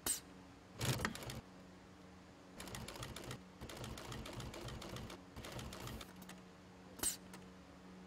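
Industrial sewing machine stitching in short runs: a quick series of needle strokes from about two and a half to six seconds in, with a brief pause, over a steady motor hum. Sharp clicks at the start and about seven seconds in, and a short burst about a second in.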